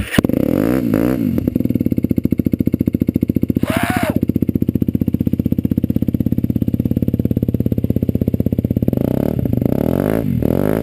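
Derbi DRD 125 SM motorcycle engine running through an aftermarket Turbokit Road X exhaust. It is blipped up and down just after starting, settles into a steady, even idle, and then takes quick throttle blips again near the end.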